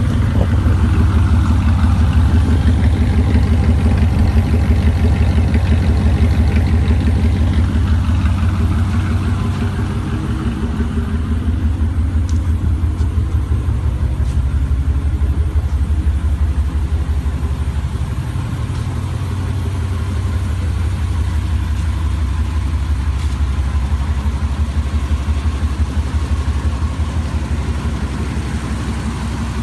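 1996 Chevy pickup idling through a true dual straight-pipe exhaust with catalytic converters and long-tube headers: a steady, deep, pulsing exhaust note. It is slightly louder for the first several seconds, then eases a little.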